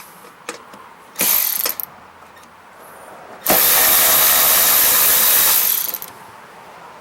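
Power driver backing out the snow blower's belt-cover bolts: a short burst about a second in, then a steady run of about two and a half seconds.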